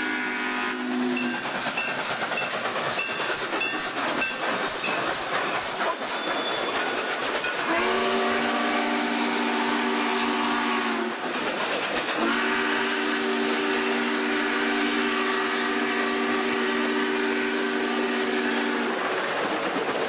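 Steam whistle of Atlanta & West Point 4-6-2 Pacific No. 290, a blast ending about a second in, then two long blasts, the second about twice as long, separated by a brief break. Between them, the hiss and rapid, even exhaust beat of the steam locomotive working past at speed.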